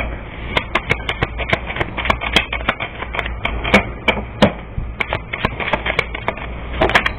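Reading cards being shuffled and handled: an irregular run of quick, sharp slaps and clicks, several a second, over a steady low hum.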